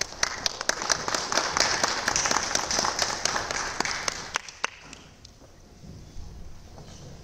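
Applause: many hands clapping, dying away after about four seconds, with a few last scattered claps.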